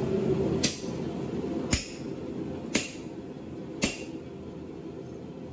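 Blacksmith's hammer striking a red-hot railway spike on an anvil: four blows about a second apart, each with a short metallic ring, over a steady low hum.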